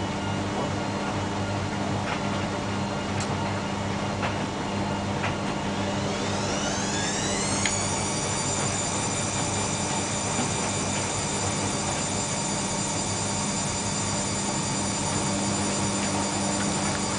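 Bauknecht washing machine speeding up into a spin: over a steady hum with a few light clicks, a whine rises about six seconds in and levels off into a steady high whine.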